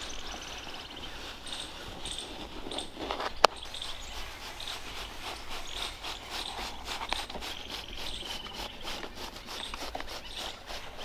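Outdoor rural ambience of insects and birds chirping, with one sharp click about a third of the way in.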